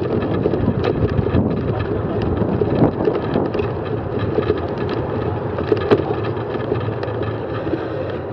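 Wind buffeting the microphone of a bike-mounted camera while cycling, over a steady road rumble, with many small clicks and rattles from the bicycle on the road surface.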